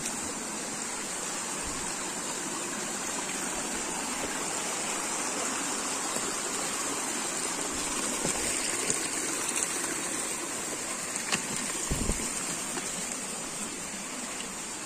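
Water of a mountain stream rushing steadily over rocks, with a steady high hiss above it and a brief low bump about twelve seconds in.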